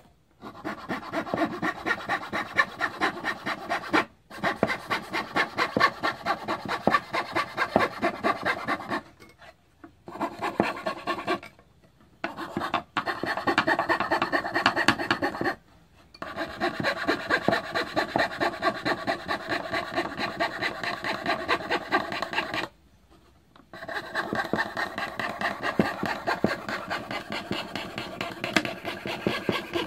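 Hand fretsaw sawing in quick, even back-and-forth strokes, about three to four a second, with several short pauses between runs of cutting.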